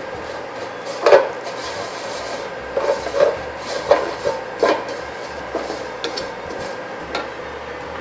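Wooden spatula scraping and knocking against a wok as fried shiitake strips are tossed with sesame seeds in a sticky soy-sugar glaze. The strokes come irregularly, the loudest about a second in and a cluster between about three and five seconds, over a steady faint hum.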